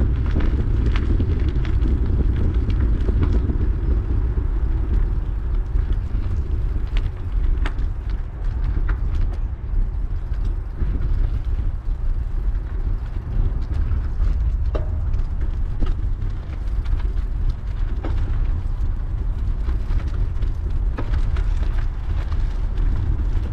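A 2004 Cannondale F400 mountain bike rolling over a gravel path: a steady low tyre rumble with scattered small clicks and ticks throughout.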